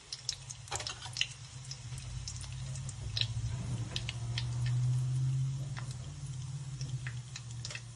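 A tadka of mustard seeds, cumin and curry leaves frying in hot oil in a kadhai: scattered sharp pops and crackles of the seeds. Under them runs a low steady hum that swells a little in the middle.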